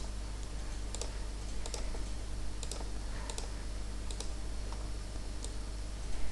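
Scattered, irregular clicks of a computer mouse and keyboard over a steady low electrical hum.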